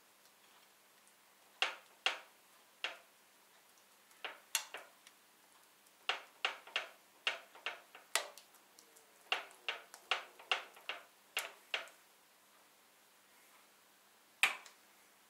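Metal spoon clicking and clinking against a glass bowl, a plate and the bread while mint chutney is scooped and spread: a run of irregular small sharp clicks, with one louder clink near the end.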